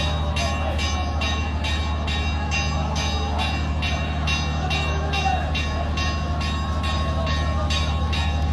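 Large diesel engine on a river launch running steadily: a constant low drone with an even chugging beat about three times a second.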